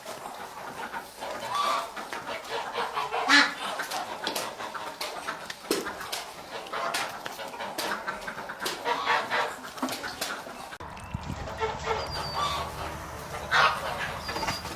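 Chickens clucking with many short repeated calls, and a louder sharp squawk twice. A low steady hum joins in after about eleven seconds.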